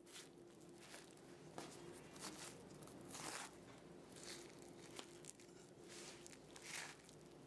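Faint scraping of a metal spoon pulling the cooked, stringy flesh of a roasted spaghetti squash out of its skin, in short irregular strokes, with a couple of light clicks.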